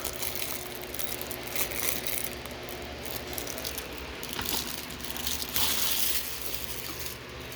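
Rustling, crinkling and small clicks from a 4K Blu-ray case and its cardboard slipcover being handled and opened.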